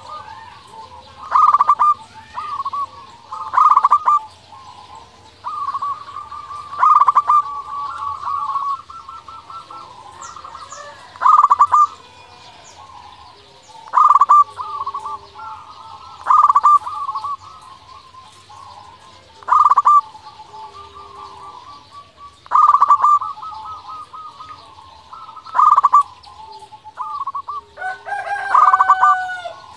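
Local zebra dove (perkutut) singing its cooing song, one phrase every two to three seconds, each a sharp opening note running into a quick string of staccato notes. Near the end comes a different call with sliding notes.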